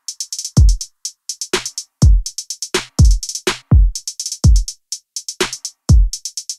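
Background music: a drum-machine beat of deep booming kicks with quick runs of crisp hi-hat ticks between them.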